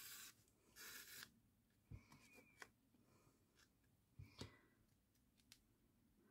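Faint rustles of needle and thread being drawn through grosgrain ribbon during hand-sewing, two short ones near the start, followed by a few soft clicks and taps as the ribbon and clips are handled.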